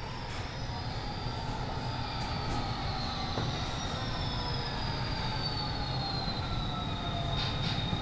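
Model train running on the layout's track: a steady running noise with several thin, high whines that slide slowly down in pitch.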